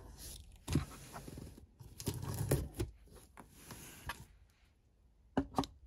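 Box cutter slicing through packing tape on a cardboard box, with rasping cuts and the cardboard being handled and knocked. A cluster of strokes comes about two seconds in, and two sharp clicks come near the end.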